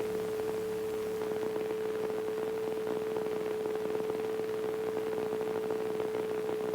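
Steady, unbroken hum at a single pitch over a faint hiss on an aircraft intercom audio feed in flight.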